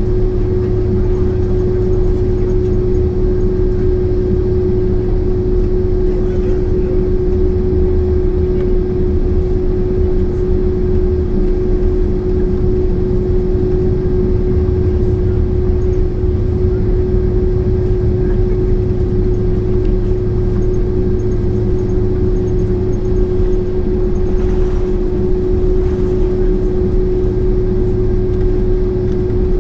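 Cabin noise of a Boeing 767-400ER with its GE CF6-80C2 jet engines at low thrust before takeoff: a steady low rumble with a constant hum over it, no spool-up.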